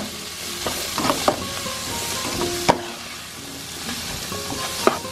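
Diced onions, green peppers, carrots and peas sizzling in hot oil in a nonstick skillet as a spatula stirs them, with a few sharp clicks of the spatula against the pan.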